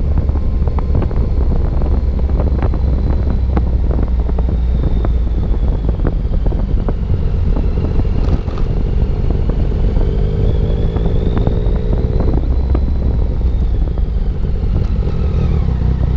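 Motorcycle engine running steadily under way, a dense low drone with slowly shifting pitch, with many short knocks and ticks scattered through it.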